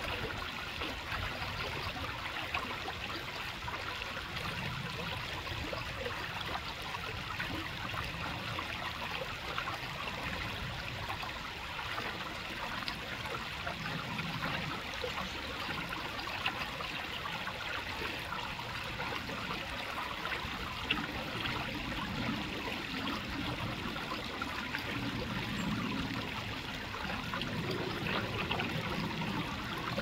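Creek water running and trickling steadily over rocks.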